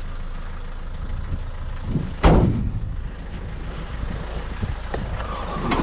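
A heavy piece of scrap metal lands in the back of a van with one loud bang about two seconds in, over the steady hum of the van's engine idling.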